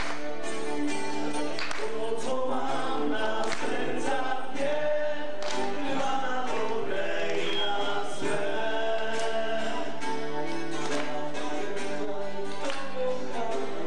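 Several voices singing a song together in harmony to a strummed acoustic guitar.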